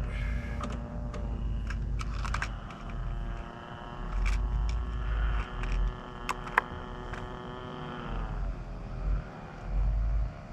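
Engine and propeller of a Global E Z Cessna 182 RC model airplane running at a steady pitch, then throttled back about eight seconds in, its pitch dropping and settling low. Scattered sharp clicks and low rumbling gusts run alongside.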